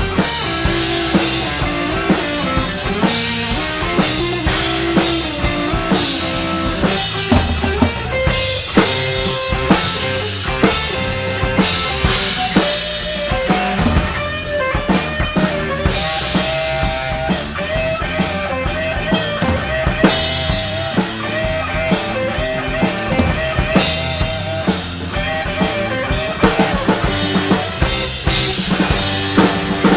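Rock band playing an instrumental passage with no singing, driven by a drum kit with snare and bass drum. A held, wavering lead note rises over the band in the middle.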